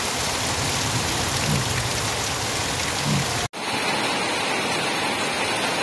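Heavy rain pouring down steadily onto flooded ground. It breaks for an instant a little past halfway, where the recording cuts, then carries on the same.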